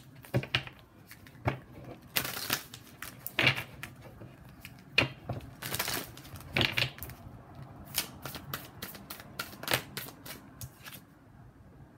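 A deck of tarot cards being shuffled by hand: irregular snaps and short rasps of cards sliding over each other, with a run of quick clicks about two-thirds of the way through.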